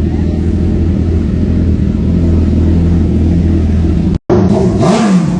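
Suzuki GSX-R1000's inline-four engine running steadily, then after a short break revved, its pitch rising and falling near the end.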